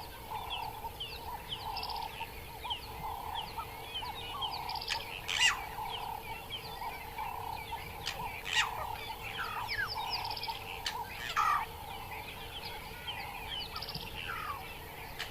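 Forest birds calling together: many quick chirps and trills, one bird repeating a low note about once a second, and a few louder sharp calls standing out. A faint steady tone hums underneath.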